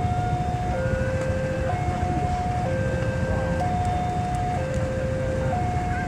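Electronic railway level-crossing alarm sounding a steady two-tone high-low chime, each note about a second long, over the low rumble of a diesel locomotive approaching slowly.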